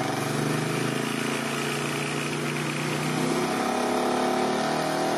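Small ATV engine idling, its pitch creeping up a little in the second half.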